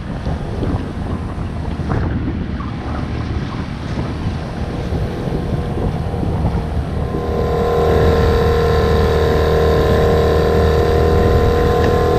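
Wind buffeting the microphone over water sloshing around the sailboat's hull, then about seven seconds in a small outboard motor's steady drone comes up loud and stays even.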